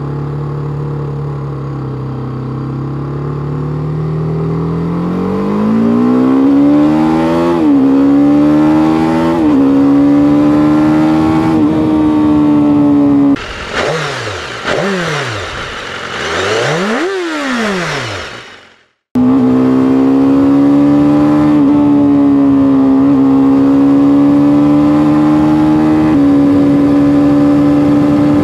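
BMW G310R's single-cylinder engine running steadily, then accelerating hard through the gears, its pitch climbing with brief dips at each upshift. Partway through come a few sharp throttle blips that rise and fall quickly. After a short break the engine holds a high, steady pitch at speed.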